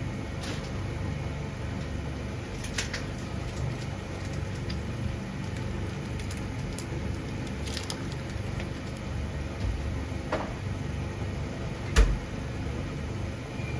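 Kitchen cooking sounds: a steady low hum with a few light clicks and one sharper knock about twelve seconds in.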